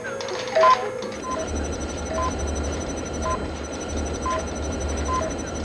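Electronic console beeps alternating between a higher and a lower pitch, about two a second, over a low electrical hum and a faint high whine. A louder click with a beep comes about half a second in.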